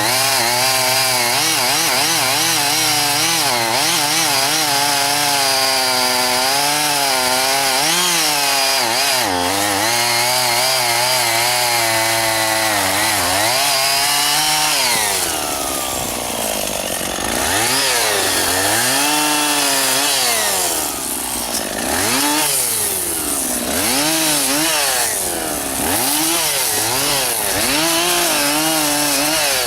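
Two-stroke chainsaw running at high revs and cutting into juniper, its pitch wavering under load for about the first half. After a dip partway through, the engine speed rises and falls over and over, about every two seconds.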